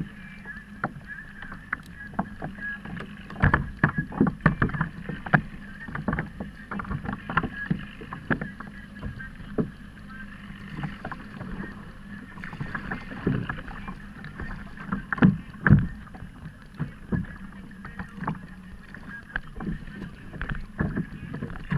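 Water slapping against a kayak's hull, with many irregular knocks and clacks from the hull and gear, over a steady faint hum.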